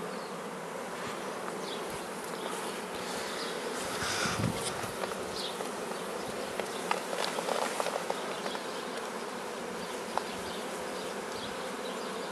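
A mass of honeybees buzzing steadily around an open hive and a comb frame. About seven to eight seconds in there is a short run of soft scratchy strokes as a bee brush sweeps bees off the frame.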